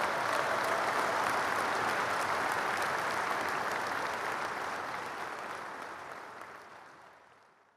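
Crowd applause, a dense steady patter of many hands clapping. It swells in, holds, then fades out smoothly over the last few seconds, like an added winning sound effect.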